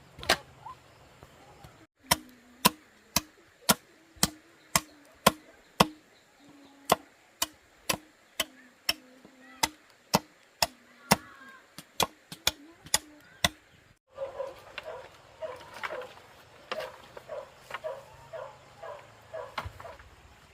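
Steady chopping, about two sharp strikes a second. After a short break near the middle, a faster run of softer knocks follows, with a pitched sound mixed in.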